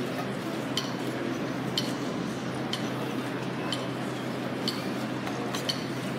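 Drill squad's boots striking the hard ground together in a silent drill, a sharp clinking click about once a second, over a steady murmur of crowd noise.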